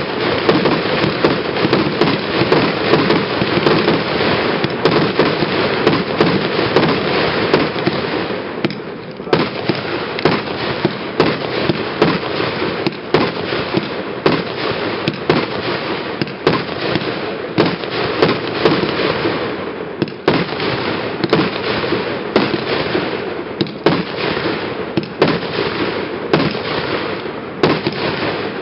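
A set of consumer firework cakes chained to one fuse fires a continuous barrage of rapid overlapping shots and crackling bursts. It eases briefly about nine and twenty seconds in.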